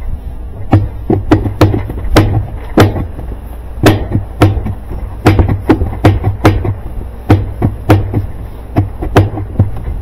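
Sharp, irregular knocks, roughly two a second, from a freed washing-machine agitator being worked up and down on a Whirlpool direct-drive transmission shaft. A steady low hum runs underneath.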